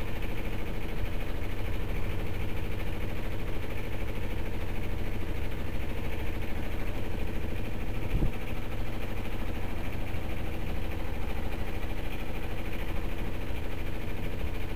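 A small yacht's auxiliary engine running steadily under way, a low even drone, with a brief knock about eight seconds in.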